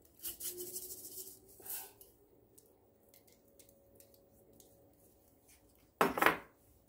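Scratchy rustling and faint clinks of sugar decorations being picked out of a small steel saucepan, then a short loud brushing noise about six seconds in, as a sleeve passes close to the microphone.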